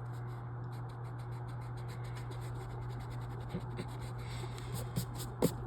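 Light scratching of writing strokes, a few per second, as marks are made on a puzzle grid, with a sharper click near the end, over a steady low hum.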